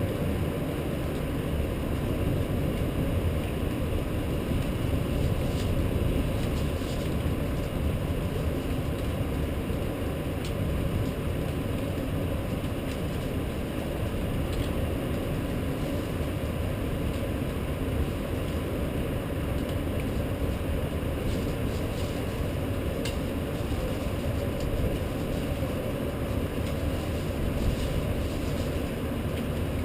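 Rainstorm: a steady rushing of rain and wind, with a few faint scattered ticks.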